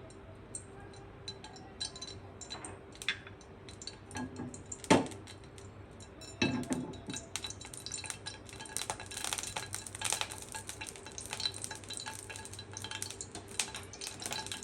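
Soybean oil heating in a frying pan, crackling more and more from about halfway through, with scattered light clinks of utensils on the pan and one sharp knock about five seconds in.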